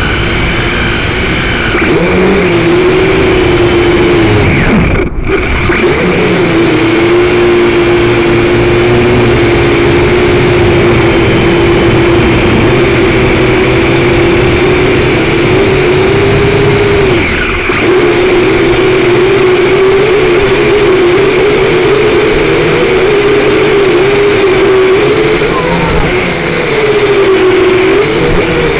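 Syma quadcopter's electric motors and propellers whining, heard close up from the drone's onboard camera. The pitch wavers and dips as the throttle changes, with two brief dropouts, about five seconds in and past the middle.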